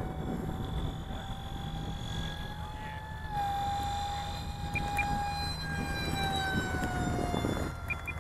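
Electric ducted-fan motor of the Electrifly F-20 Tigershark RC jet whining in flight. The whine steps up slightly in pitch about three seconds in, then slowly falls, over a low rumble.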